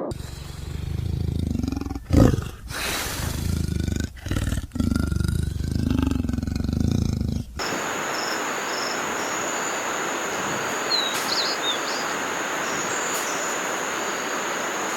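Deep animal roars or growls in a few short, abruptly cut pieces, giving way about seven and a half seconds in to steady outdoor background noise with a thin high tone and a few brief chirps.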